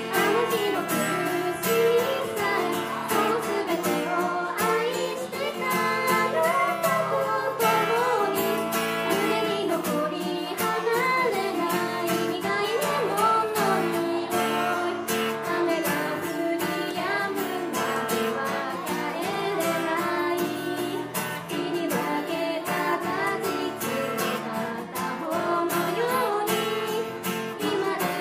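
Live female vocals sung over an acoustic guitar accompaniment, amplified through a small PA.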